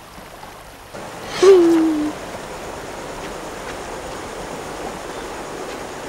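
Steady rushing of running water, like a stream, starting about a second in. A single short voice sound, falling in pitch, comes just after it starts.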